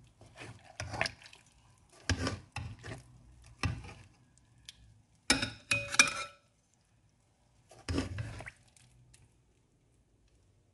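A serving spoon scraping and knocking against a nonstick pan as fish and okra stew is scooped out, in five short bouts of clatter. The loudest bout, about halfway through, ends in a brief ringing clink. The clatter stops about three-quarters of the way through.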